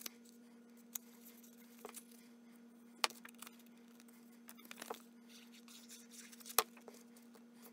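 Cardstock being handled on a work table: a few faint, sharp clicks and taps of paper and card, over a steady faint hum.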